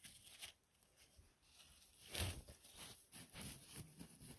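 Faint rustling and crackling of forest-floor litter being disturbed, with one louder rustle about two seconds in.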